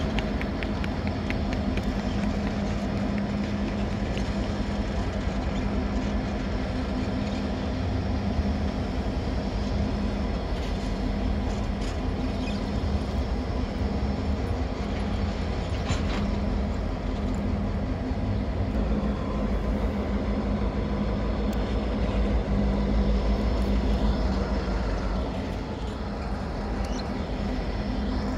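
Diesel engines of a pair of CN road-switcher locomotives running steadily in a rail yard: a low rumble with a constant hum.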